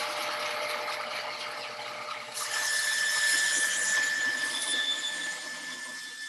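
Bandsaw running and cutting a curved line through an ash board. A steady high whine and hiss join the motor sound about two and a half seconds in, as the blade works through the wood.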